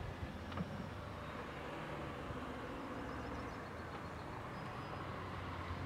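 Steady outdoor background rumble with a soft hiss, even in level throughout.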